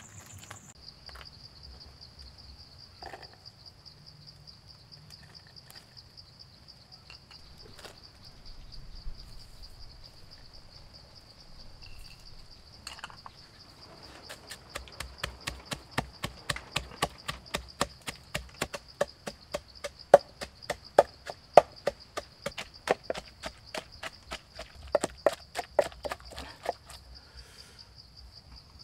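Wooden pestle pounding chillies, shallots and salt into a paste in a wooden mortar: sharp knocks several times a second, starting about halfway through and stopping shortly before the end. Before that, only a few scattered knocks.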